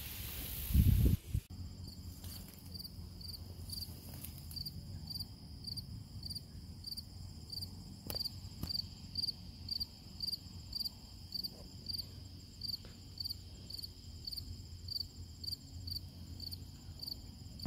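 A brief rush of noise with a loud thump, cut off suddenly near the start, then a cricket chirping steadily about twice a second.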